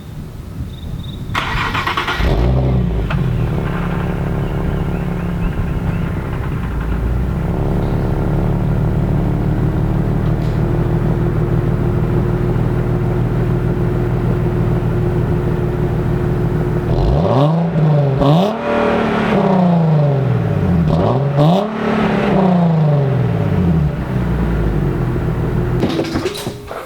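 A car engine starts about two seconds in and idles steadily. Near the end it is revved up and down several times in quick succession.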